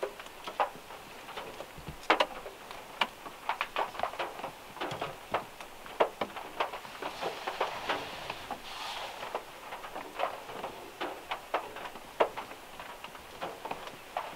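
Rain and drips from overhanging trees falling on a car roof, heard from inside the car as irregular sharp ticks and taps.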